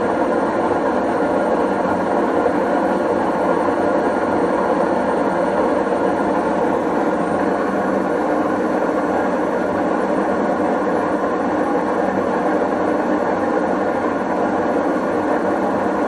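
Whirlpool front-loading washing machine running with a loud, steady mechanical noise. The owner has checked the springs and anchor points and takes the noise for a worn drum bearing.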